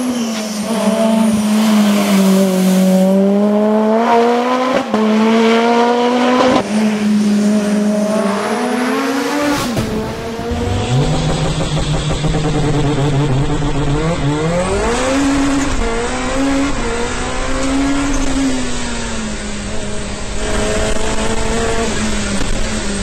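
Supercharged Honda K24 four-cylinder in a Lotus Exige S2 race car at full effort, its revs rising and falling with short breaks at the gear changes. About ten seconds in, the sound switches to inside the cockpit. There the engine is lower and partly buried under loud road and wind noise, with the revs climbing sharply a few seconds later.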